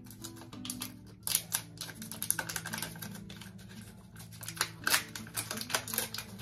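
Foil wrapper of a First Response pregnancy test being torn and crinkled open by hand: quick, irregular crackles and clicks.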